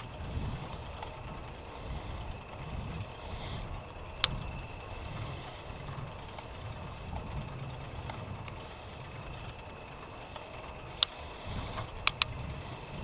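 Uneven low rumble of wind buffeting the microphone, with a few sharp clicks: one about four seconds in and three close together near the end.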